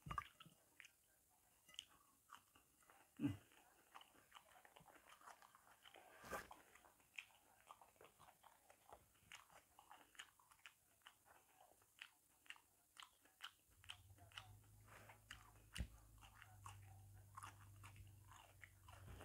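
Faint chewing and eating sounds of ripe jackfruit eaten by hand: scattered small mouth clicks and smacks. A low steady hum comes in past the middle.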